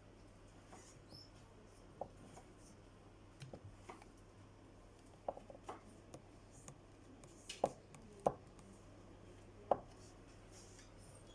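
Scattered light clicks and taps of small tools and parts being handled during a power drill repair, with a few sharper knocks near the end, over a faint steady low hum.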